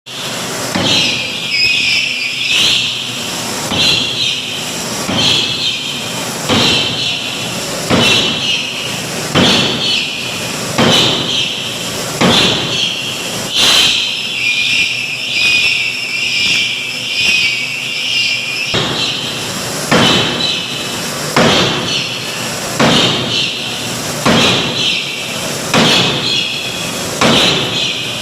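Forging hammer striking metal blows over and over, about one every second and a half, each blow followed by a short high ringing.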